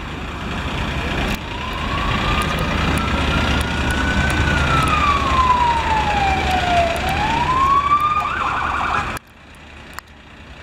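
Police car siren sounding a slow wail that rises, falls and rises again, then switches to a fast yelp about eight seconds in, over road traffic noise. It cuts off abruptly near the end.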